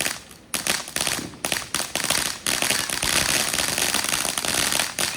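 Consumer fireworks crackling: a dense, rapid string of sharp pops over a hiss, with a brief lull just after the start.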